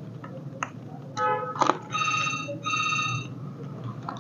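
Electronic phone ringtone: a short tone, then two rings of about half a second each, a little apart, with a few faint clicks.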